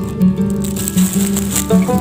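Background music with sustained notes changing every half second or so.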